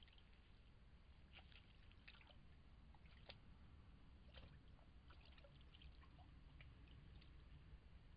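Near silence with faint, irregular small drips and splashes of water from a beaver swimming beside its lodge.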